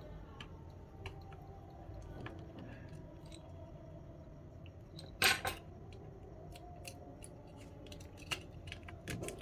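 Faint clicks and light scrapes of small tools and phone parts being handled during disassembly of a smartphone, with one louder, brief scrape about five seconds in.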